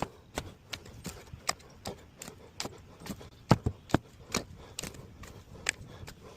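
Shovel working dirt and stones: irregular sharp scrapes and knocks, two or three a second, the loudest knock about three and a half seconds in.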